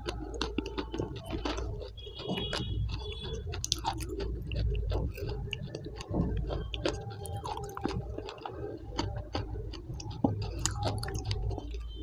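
Close-miked mouth sounds of someone eating a thick, creamy paste from a spoon: a dense run of wet, sticky clicks and chewing.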